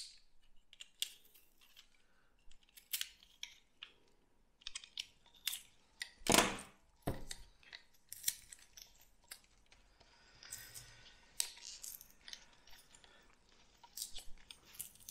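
Cured polyurethane foam being scraped and cut off a foam applicator gun with a utility knife and picked off by hand: scattered clicks, scrapes and crackles, with a louder knock about six seconds in and another a second later.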